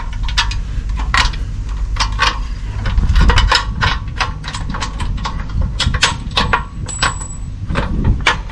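Irregular metallic clicks and clinks of a wrench working a bolt through a steel transfer-case cradle, at several a second in the middle, over a steady low rumble.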